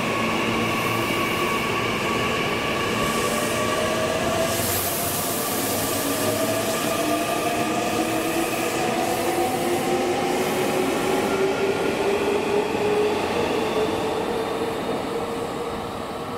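Meitetsu 9500-series electric train, coupled to a 2000-series set, pulling out of the station: the traction motor whine rises slowly in pitch as it accelerates, over the rumble of wheels on rail. It fades near the end.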